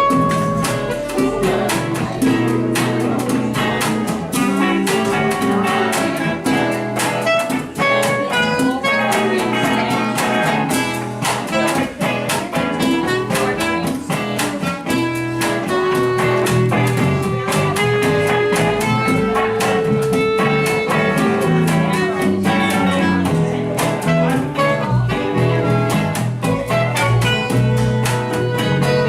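Instrumental band music led by guitar, with a sustained melody line over a moving bass.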